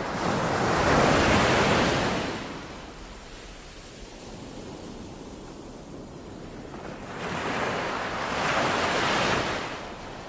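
Ocean surf breaking and washing up a beach: one wave swells and fades over the first couple of seconds, a second comes in about seven seconds in, and a softer hiss of water runs between them.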